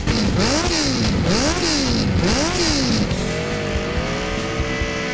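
Sport motorcycle engine blipped three times in quick succession, each rev rising and falling in pitch. About three seconds in it settles back to a steady idle.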